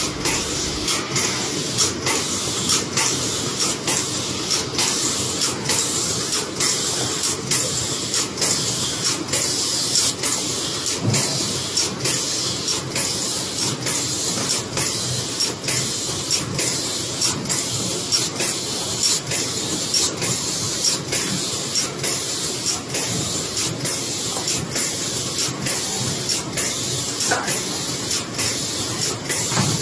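BK-140A automatic cellophane overwrapping machine running at production speed, wrapping paper cards. A steady hissing, rattling machine noise with a sharp, even stroke nearly twice a second as the machine cycles through each wrap.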